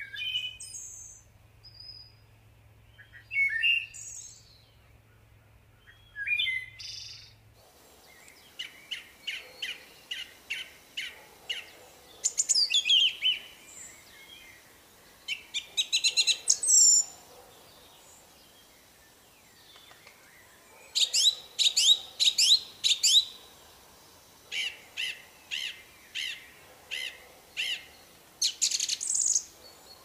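A wood thrush sings three short separate phrases about three seconds apart over a faint hum. After a cut about eight seconds in, a song thrush sings loud phrases made of quickly repeated notes, with short pauses between phrases.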